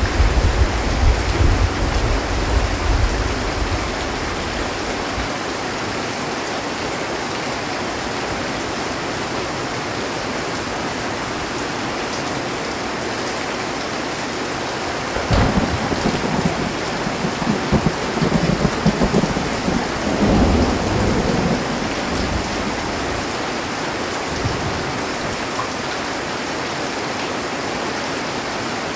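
Heavy rain falling steadily on a metal roof, with thunder: a low rumble dies away over the first few seconds, then a sudden crack about halfway through rolls on for several seconds before fading.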